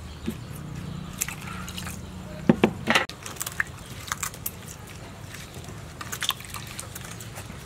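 Hands squeezing and kneading wet grated coconut in a steel bowl to press out coconut milk: a soft squelching with scattered small clicks. Near the start come a few sharp clicks, the loudest about three seconds in.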